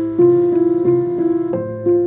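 Background piano music: a melody of single notes, each ringing on after it is struck.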